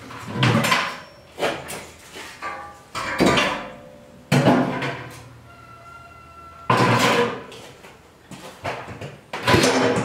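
Clattering and knocking of a large stainless steel pot and a propane burner stand being handled and set together, with a series of separate knocks. After one knock near the middle the metal pot rings for a second or so.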